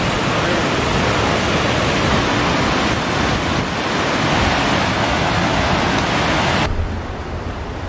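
Water pouring over a dam spillway and churning white below it: a loud, steady rush. Near the end it drops off abruptly to a quieter, duller noise.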